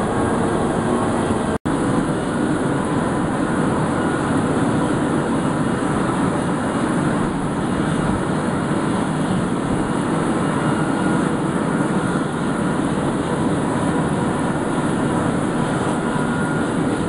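Eurocopter twin-turbine medical helicopter running on the pad, its turbines and turning rotors making a loud, steady noise. A split-second dropout cuts the sound about a second and a half in.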